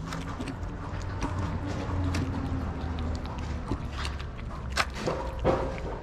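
Several cats eating wet cat food from plastic trays: irregular wet chewing and smacking clicks, the sharpest a little before and after five seconds in, over a steady low rumble.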